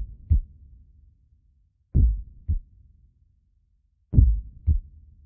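Slow heartbeat sound effect on the soundtrack: three deep lub-dub double thumps, each pair about two seconds apart.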